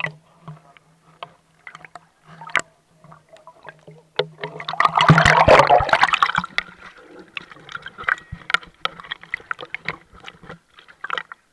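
Water sloshing and bubbling around an action camera held underwater, heard muffled through the camera, with scattered clicks and crackles over a steady low hum. A loud rush of water lasts about two seconds around the middle.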